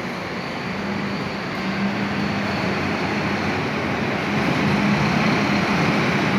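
Diesel bus engines running with a steady low hum and road noise. The sound grows louder about four seconds in as a bus drives close past.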